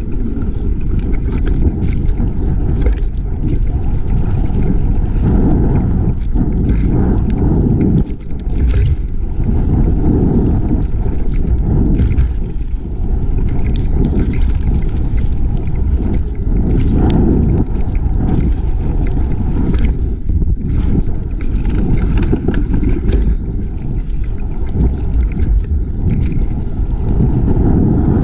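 Mountain bike rolling fast down a dirt trail: steady rumble of wind buffeting the camera microphone and tyres on dirt, with scattered sharp clicks and knocks from the bike over bumps.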